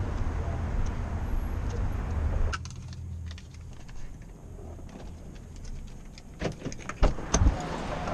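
Outdoor traffic rumble, cutting to a quieter car interior about two and a half seconds in. Near the end come clicks and a few sharp knocks as the car door and keys are handled.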